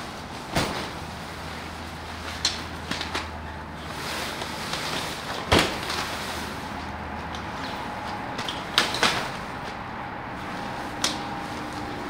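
Grey pop-up hub tent being pulled open by hand: its fabric rustles and several sharp snaps ring out as the hubs and poles click into place, the loudest about halfway through.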